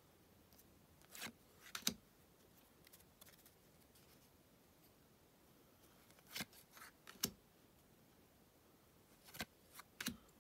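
Topps Bundesliga trading cards being flicked through by hand, cards slid off the stack one at a time: short card-on-card swishes and snaps in three brief clusters, about a second in, around six to seven seconds in and near the end, with quiet between.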